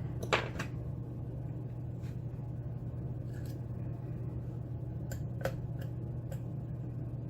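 Scattered light clicks and taps from handling a pin-tumbler lock and its picking tools, with a sharper knock about a third of a second in, over a steady low hum.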